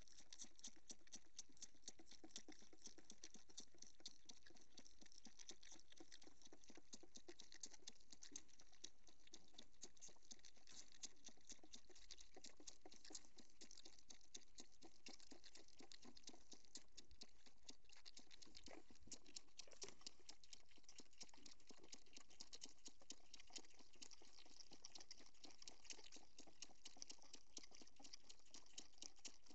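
Goat kids sucking milk from bottle teats: a fast, steady run of faint wet sucking clicks.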